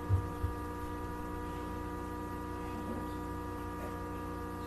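Steady electrical hum at several fixed pitches, with a few soft low thumps in the first half second.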